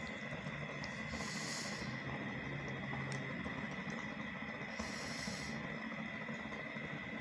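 Slow breathing: a short, soft hiss about every three and a half seconds, over a steady high-pitched hum.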